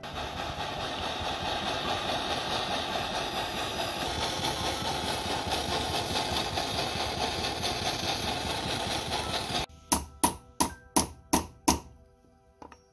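Jeweller's gas torch flame hissing steadily as it heats silver, cutting off suddenly near the end. Right after, about six quick hammer blows on metal on a small steel anvil, each ringing.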